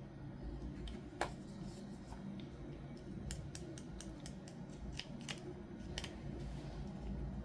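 Scissors snipping: one sharp snip about a second in, then a run of quicker snips and clicks in the middle, typical of cutting open toy packaging.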